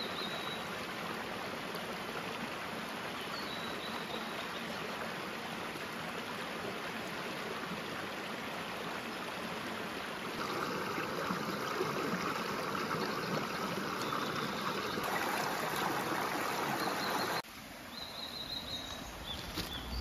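Mountain stream running over rocks, a steady rush of water that grows louder about halfway through. Near the end it cuts off abruptly, giving way to quieter outdoor ambience.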